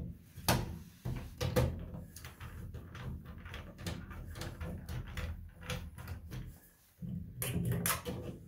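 Hand screwdriver turning the single mounting screw that holds the new motor plate into the bathroom exhaust fan's metal housing: a run of clicks, knocks and scraping, with sharper clicks about half a second and a second and a half in and a louder stretch near the end.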